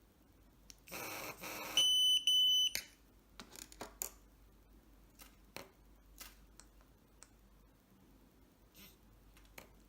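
Pandora 605 car-alarm key tester giving two short, high-pitched electronic beeps in quick succession about two seconds in, followed by scattered faint clicks.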